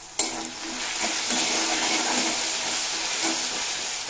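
Diced potato frying in hot mustard oil in a kadai, sizzling loudly and steadily as a metal spatula stirs it. It starts abruptly with a sharp clack and eases off near the end.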